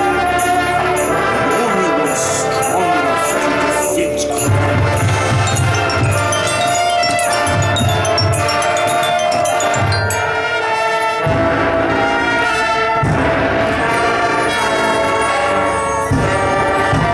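Marching band playing its field show music: sustained wind chords with bright mallet percussion over them, and repeated low drum pulses through the middle. Several heavy accented hits come in the second half.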